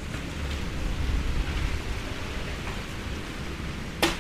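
Wind buffeting the microphone in a steady low rumble, with one sharp click near the end.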